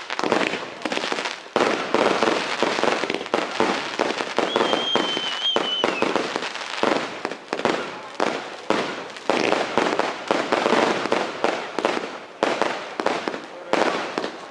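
A fireworks battery firing a rapid, continuous run of launches and bursts, with a brief wavering high whistle about four and a half seconds in.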